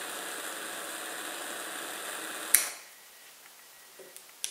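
Butane jet lighter burning with a steady hiss, then its lid snapped shut about two and a half seconds in, cutting the hiss off; a few faint handling clicks follow.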